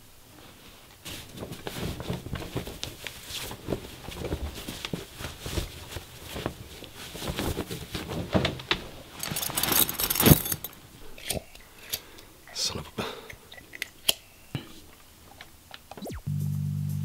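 A quick run of household handling noises: a cloth wiping a wooden tabletop, fabric rustling, and short clicks and knocks as things are moved about, with music under it. There is a louder rustling flurry about two-thirds of the way through, and a steady low buzz starts suddenly near the end.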